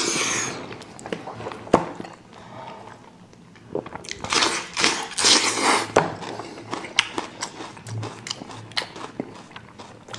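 Close-miked eating of a sauced sheep's head: wet slurping and sucking of meat and sauce off bones and fingers, with chewing and lip-smacking clicks. Loud slurps come at the start and again about four to six seconds in.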